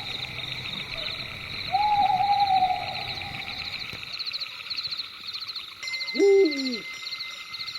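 Owl hooting twice: a held call about two seconds in, and a louder call that drops in pitch near the end. Underneath runs a steady, high, pulsing trill of night insects.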